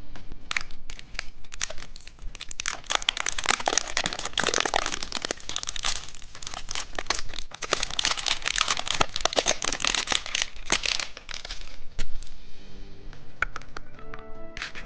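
Candy wrapper being crinkled and torn open in many quick irregular rustles. Music starts near the end.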